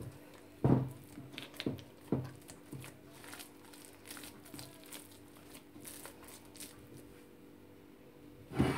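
Hands kneading soft bread dough in a glazed ceramic bowl: irregular squishes, slaps and soft knocks of dough against the bowl. The louder knocks come in the first couple of seconds.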